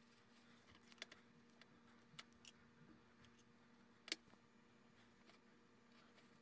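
Near silence with a faint steady hum, broken by a few light clicks and taps, the sharpest about four seconds in, as a small pick sets canned yellow peach slices onto cream-topped castella on a plate.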